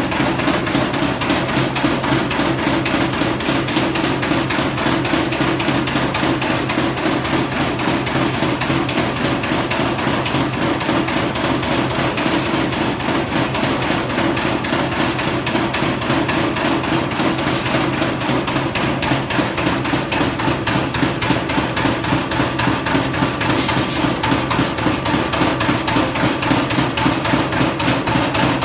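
Pillow-shape charcoal briquetting roller press and vibrating screen running, briquettes clattering on the perforated metal screen: a loud, continuous, rapid metallic rattle over a steady low hum that drops away about two-thirds of the way through.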